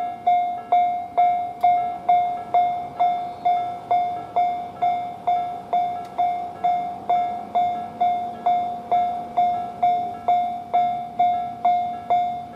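Japanese railway level-crossing warning bell ringing its steady kan-kan alarm, about two strikes a second, each ring dying away before the next.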